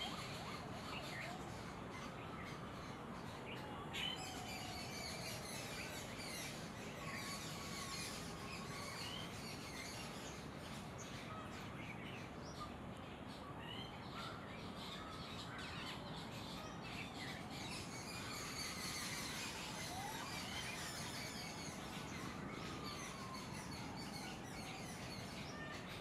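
Forest bird chorus: many small birds chirping and twittering over a steady background hiss, with a few slow gliding whistles.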